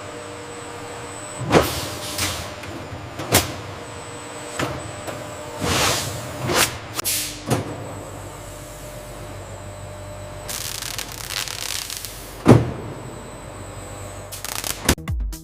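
Packaging-line machinery running: a steady mechanical hum with irregular clunks and hissing bursts, and a sharp knock about twelve seconds in. Electronic dance music with a steady beat starts near the end.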